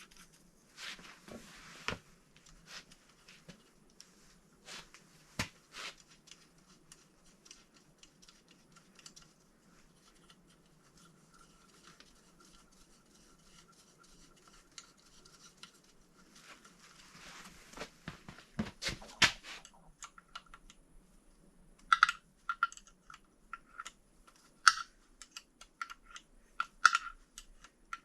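Scattered clicks and light metallic clinks of hand tools and engine parts being handled during engine reassembly, with a cluster of louder knocks about two-thirds of the way in and a quicker run of sharp clicks near the end, some with a brief ringing tone.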